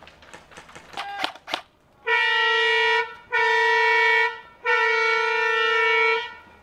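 A horn, most likely a handheld air horn, gives three long, steady blasts, the last one the longest. Just before them there are a few sharp clicks.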